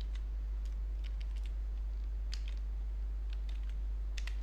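Computer keyboard keys clicking in a handful of scattered, irregular keystrokes. Under them runs a steady low electrical hum.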